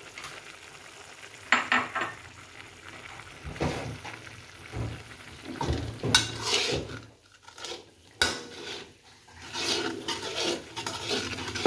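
Metal spatula stirring and scraping a chilli paste around a wok in irregular strokes, the paste sizzling as it fries. There is a sharp knock of the spatula against the pan about eight seconds in.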